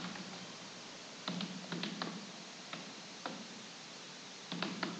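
Computer keyboard being typed on: slow, uneven single keystrokes in small groups, starting about a second in.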